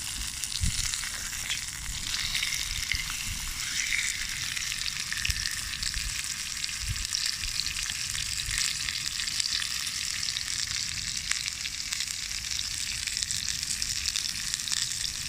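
Steak sizzling on a grill over a campfire: a steady, dense frying hiss with fine crackles throughout.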